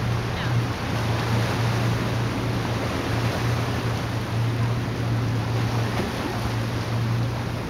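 A constant wash of wind and sea noise at the shoreline, with a steady low hum under it that does not change.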